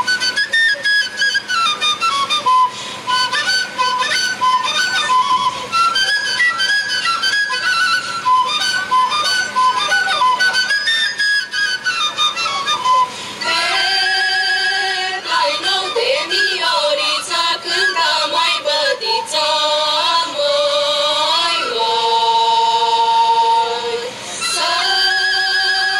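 A Romanian shepherd's flute (fluier) plays a fast, ornamented folk tune. About halfway through, a choir of women's voices comes in, singing long held notes in harmony.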